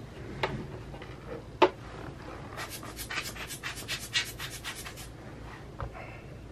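Hand handling noise on a desk: two sharp clicks, then a quick run of scratchy strokes, about eight a second for two and a half seconds, and one last click near the end.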